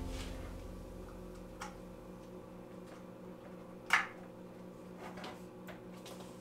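Faint steady electrical hum with a few scattered light clicks and ticks, the loudest click about four seconds in.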